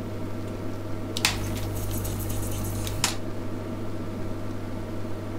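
Electric desoldering gun's vacuum pump sucking molten solder out of a circuit board's through-holes: a hiss of suction starts about a second in and cuts off two seconds later, over a steady low hum.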